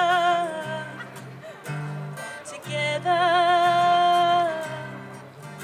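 Live pop song with a singer and strummed acoustic guitar: the singer holds the last word "together" with vibrato, fading out about a second in, then sings a second long note with vibrato from about three seconds in, over steady guitar chords.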